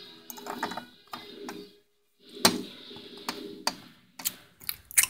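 Irregular light plastic clicks and taps as a Littlest Pet Shop toy figure is knocked against a plastic toy food bowl and table, acting out eating.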